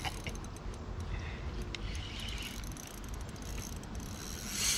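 Spinning reel being cranked with a hooked fish on the line, a steady mechanical whir with a few faint clicks over a low rumble.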